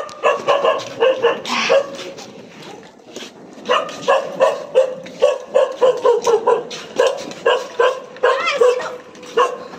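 Dogs barking in quick runs of short barks and yips, several a second, with a pause of a second or so partway through.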